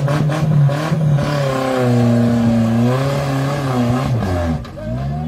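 A 4x4 off-road vehicle's engine revving under load as it crawls up a steep rocky slope. The revs rise and fall unevenly and drop off briefly near the end before picking up again.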